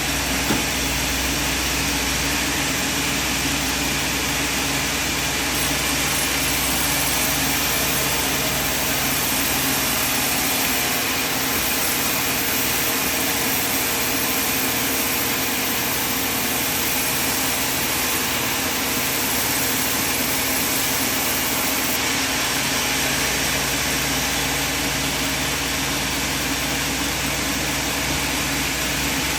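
Sawmill machinery running steadily, a continuous mechanical drone with a hiss on top; the low rumble drops away for a stretch in the middle and then returns.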